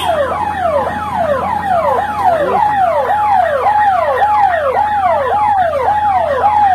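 Electronic warning tone, like a siren or alarm: a held note that drops in pitch and repeats about twice a second.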